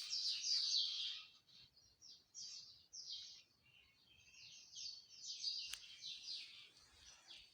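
Small birds chirping in quick runs of short, high notes, strongest in the first second and coming back in bursts later.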